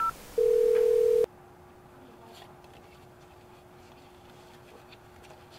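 Electronic beeps: a very short high chirp, then about half a second in a louder, lower steady beep lasting just under a second, like a phone tone. After it only a faint steady hum remains.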